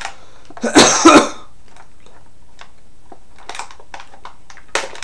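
A man coughing twice in quick succession about a second in, from someone who says he has been sick that day. Faint scattered clicks follow.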